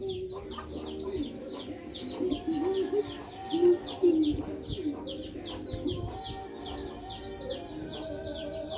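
Chickens clucking, with a bird's short, high chirps repeating rapidly several times a second in the background.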